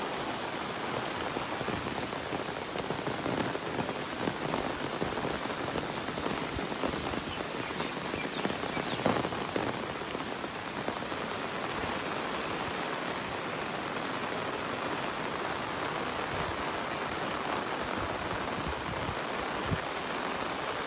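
Steady rain falling, with many small drop impacts ticking through it and one louder drop or knock about nine seconds in.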